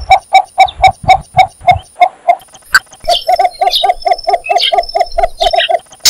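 Cinnamon bittern calling: a series of short, evenly repeated notes at about four a second, then after a brief pause a quicker run of notes from about three seconds in.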